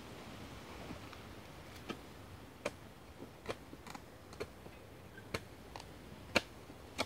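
Shovel digging into soil around a young pine tree's roots: irregular sharp clicks and knocks of the blade, the loudest about six seconds in.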